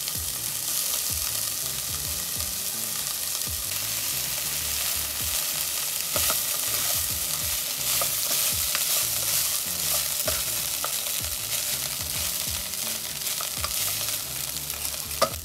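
Wooden spatula stirring and tossing cooked rice with broccoli in a nonstick pot, with scattered light knocks and scrapes against the pot. The food keeps up a steady sizzling hiss.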